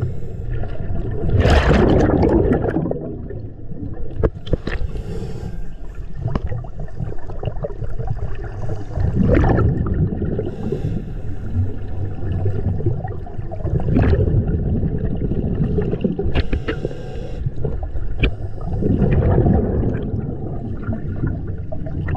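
Scuba diver breathing through a regulator underwater: a loud gush of exhaled bubbles about every five seconds, four times, with a fainter hiss of inhalation between them.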